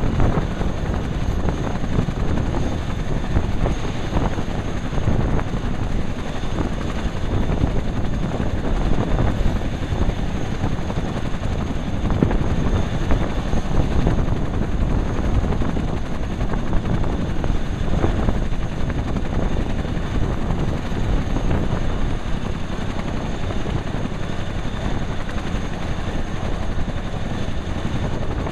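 Boeing CH-47 Chinook's tandem rotors and twin turboshaft engines running steadily on the ground during warm-up: a heavy, even rotor rumble with a high steady turbine whine above it.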